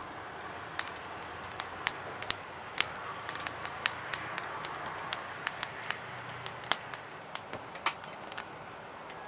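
Wood-pellet fire crackling: irregular sharp pops and snaps, several a second, over a steady low hiss.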